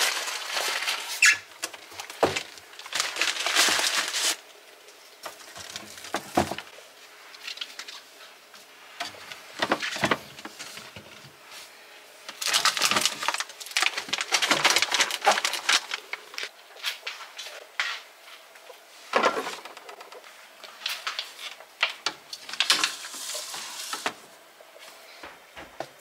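Plastic grocery packaging rustling and crinkling in spells of a few seconds, with scattered knocks of items being set on fridge shelves and into the crisper drawer.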